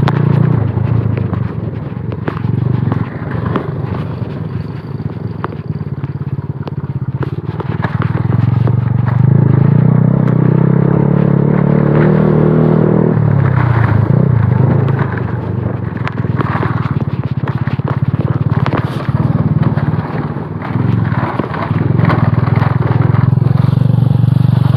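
Motorcycle engine running while riding over a rough, stony dirt track, with the bike knocking and clattering over the bumps. The engine works harder from about eight seconds in and drops back sharply about thirteen seconds in.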